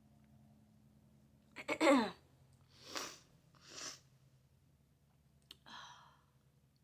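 A woman sick with COVID sneezes once about two seconds in, a short voiced burst that falls in pitch. Two hissy breaths follow about a second apart, and a softer one comes near the end.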